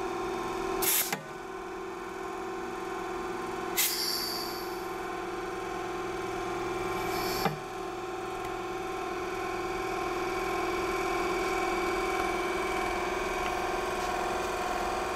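Dynabrade 64900 belt sander's 90-volt DC motor running steadily with a steady hum and whine. Three sharp clacks come about one, four and seven and a half seconds in, the middle one followed by a short hiss of air, as the pneumatic belt tensioner is shuttled.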